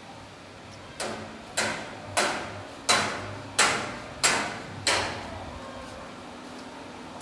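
Seven sharp knocks, evenly spaced about two-thirds of a second apart, each ringing out briefly before the next.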